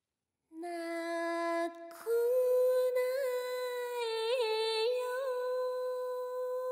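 A woman's voice hums a slow, wordless lullaby melody. A lower note is held first, and after a short break about two seconds in a higher note is held long, decorated with several quick flicks up in pitch.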